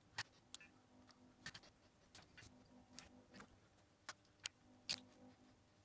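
Light clicks and taps of small hand tools and parts being handled, about a dozen irregular sharp ticks with the loudest just after the start and two more a little before the end, over a faint steady hum.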